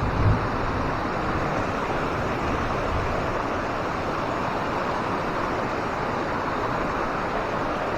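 Steady rush of falling water from a waterfall, an even hiss with no breaks, with a brief low buffet of wind on the microphone at the very start.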